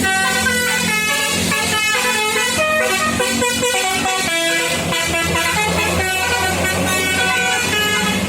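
Basuri telolet horn playing a melody: a continuous, loud run of changing horn notes, several tones sounding together, over a steady low hum.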